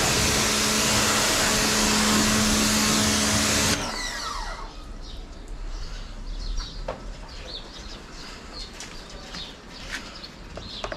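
Ingco 1400W electric pressure washer running and spraying water: a loud steady hiss with a motor hum. About four seconds in it cuts off and the motor winds down with a falling whine. Birds chirp over a few small clicks after that.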